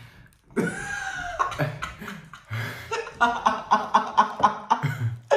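A person imitating a duck's quacking with his voice: one drawn-out squawk about half a second in, then a run of quick quacks, about five a second, in the second half.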